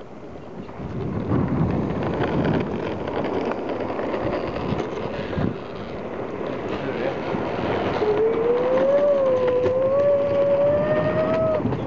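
Longboard wheels rolling over asphalt, a steady rumble that grows louder about a second in as the board picks up speed. In the last few seconds a small child holds one long, wavering vocal note over the rolling noise.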